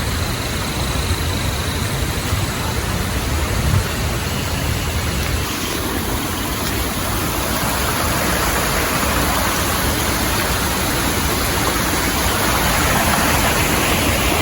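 Steady rushing of fast-flowing stream water, a little louder in the second half, with low rumbling in the first few seconds.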